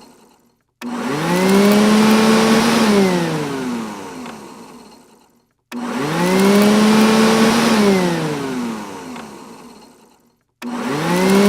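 Robot vacuum cleaner's motor whining up to speed, running briefly and winding down in falling pitch, then cutting to silence; the cycle repeats, starting three times in all.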